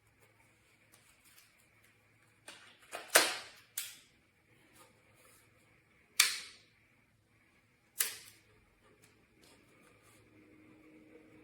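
A few sharp clicks and knocks: a quick cluster about three seconds in, then single ones about three and five seconds later, over a faint steady hum.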